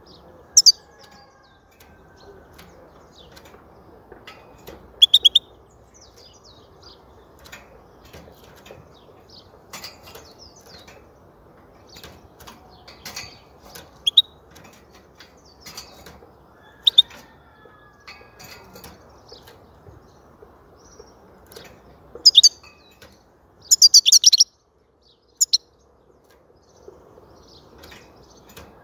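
European goldfinch giving short, sharp, high chirps every few seconds, with a quick run of them about 24 seconds in, over faint background noise.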